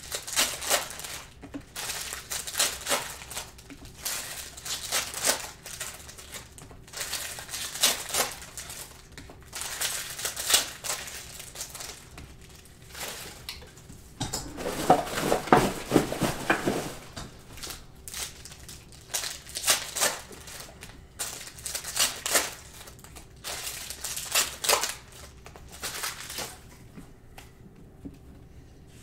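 Foil trading-card pack wrappers being torn open and crumpled, with cards being handled, in repeated short bursts of crinkling. A longer, louder stretch of crinkling comes about halfway through.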